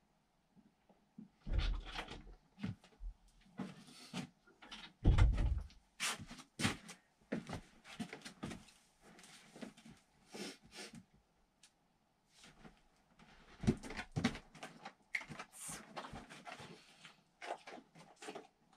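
Scattered knocks, clicks and rustling of a man and a Weimaraner moving about on a blanket-covered sofa, with a heavy thump about five seconds in.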